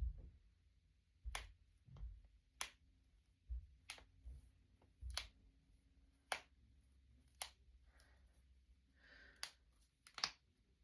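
Finger knuckles cracking: about eight sharp, separate pops spaced roughly a second apart, with soft low thuds of the hands shifting between them.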